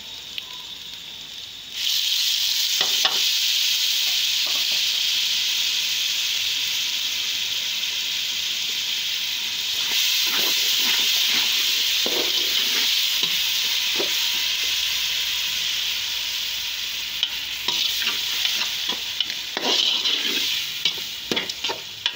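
Tomato paste tipped into hot oil and browned onions in an aluminium pot: it hits with a sudden loud sizzle about two seconds in that carries on steadily, while a metal slotted spatula scrapes and knocks against the pot as it is stirred.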